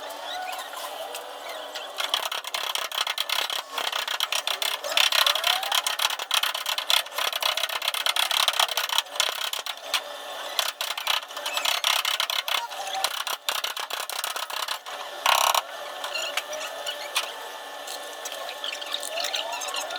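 Metal dent repair tools working a car body panel: dense, rapid clicking and scraping with short squeaky chirps, and one brief harsh burst about fifteen seconds in.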